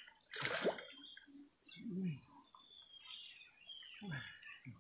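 Steady high drone of insects from the mangrove forest, with a short splash of the cast bait hitting the river about half a second in, and a few brief low sounds afterwards.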